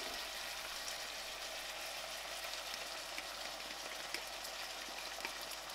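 Pork and pak choi stir-fry sizzling steadily in a frying pan, with small scattered crackles.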